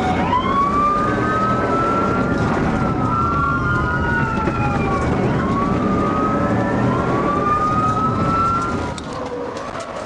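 Police car sirens wailing, several overlapping sweeps slowly rising and falling in pitch, over the driving noise of the moving patrol car. The sirens drop in level about nine seconds in.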